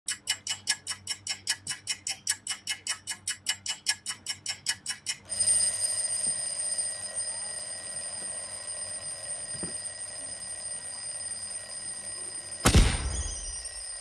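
Mechanical alarm clock bell ringing rapidly, about six strikes a second, for about five seconds. It then gives way to a steadier, quieter ringing with high held tones. Near the end a sudden loud hit with a short falling tone cuts in.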